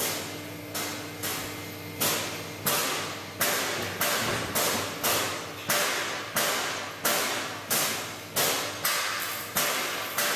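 Wrought-iron clip-clamping press striking in a steady rhythm, about three sharp metallic bangs every two seconds, each dying away, over the steady hum of its motor.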